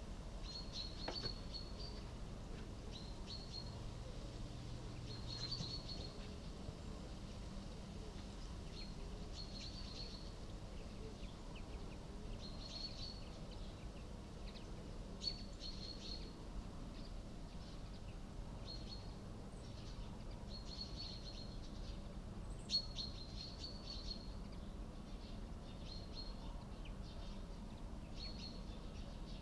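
Young common pheasant chicks peeping: short, high calls repeated every second or two over a faint steady background noise. One sharp click stands out about three quarters of the way through.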